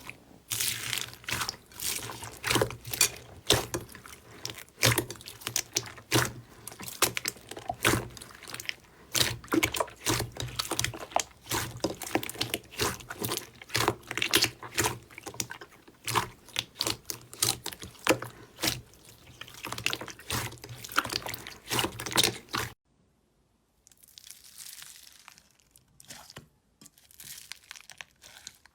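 Slime being squished and worked by hand: a dense run of sticky, wet clicks and pops. About 23 seconds in, it cuts off suddenly to a much quieter stretch of softer, scattered squishing.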